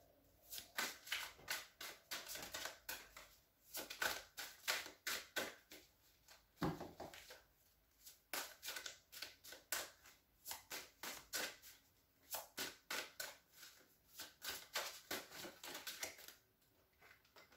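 Tarot deck being shuffled by hand: faint quick runs of card slaps and rustles in bursts, with short pauses between them. There is one duller knock about a third of the way in.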